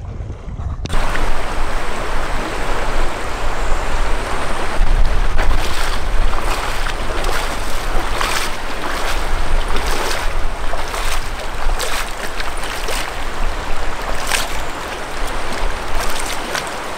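Shallow river rushing over stones, with wind buffeting the microphone in a low rumble. Irregular splashes of feet wading through the shallow water.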